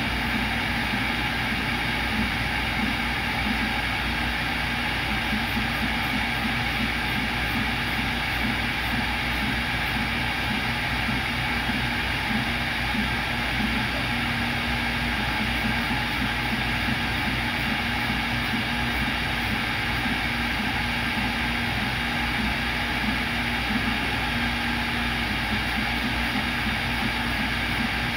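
CNC router spindle running steadily at speed while drilling holes in a copper-clad circuit board, with a low hum that starts and stops every second or so as the machine moves.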